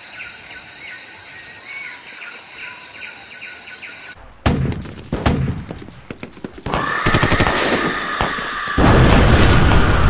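Night jungle ambience of steady insect trilling and bird chirps. About four seconds in it is cut off by a sudden volley of rapid gunfire. After that comes a loud steady noise with a held high tone.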